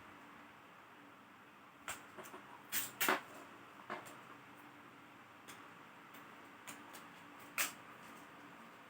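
Scattered sharp clicks and light knocks of laptop parts and tools being handled during disassembly: a quick run of clicks about two seconds in, a few faint ticks, and one more sharp click near the end, over a faint steady hiss.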